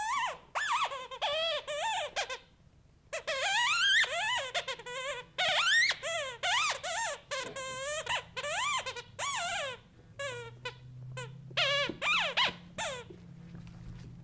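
Chicken-shaped squeaky toy squeaking over and over as a Labrador puppy chews on it, in quick high squeals that slide up and down in pitch. There is a brief pause about two and a half seconds in, and the squeaks thin out and stop near the end.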